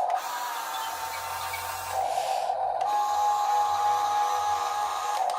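Small geared electric motors of a Top Race TR-218 RC drill excavator toy running with a steady whine. About two seconds in the sound turns rougher for a moment, then settles on a steady, slightly higher whine.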